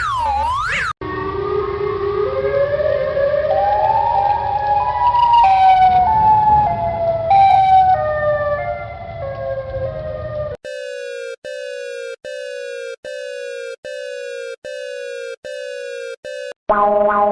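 A sequence of electronic emergency-alert alarm tones. A wailing siren sweep cuts off about a second in and gives way to a stepped melody of rising and falling tones over a hiss. Around ten seconds in it switches to a falling beep repeated roughly every 0.8 s, and a steady chord of several tones starts near the end.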